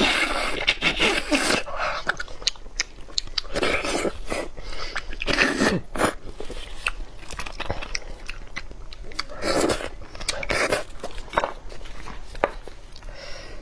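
Close-miked mouth sounds of eating beef bone marrow: sucking and slurping the soft marrow out of a cut, sauced beef bone section, with chewing in between. It comes in irregular bursts, the loudest near the start, around four to six seconds in, and around ten seconds in.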